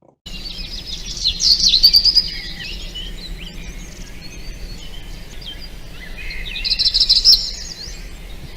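Songbird singing: quick high chirps and twittering runs, loudest about two seconds in and again as a rapid trill near the end, over a faint steady low background.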